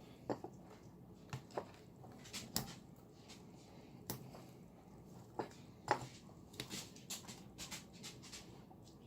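Lightsaber battery pack and hilt parts being handled: irregular small clicks and light taps of hard parts, about fifteen in all, the sharpest about six seconds in.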